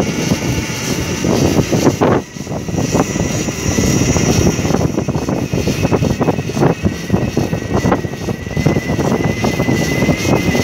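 Wind buffeting the microphone of a moving electric bike, mixed with road noise, with a brief dip about two seconds in. A thin, steady high whine runs underneath and grows clearer from about halfway.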